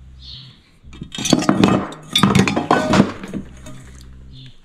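Speaker and speaker grill clinking and clattering against a metal saucepan as they are handled and lifted out of it: a quick run of clinks from about a second in to about three seconds in.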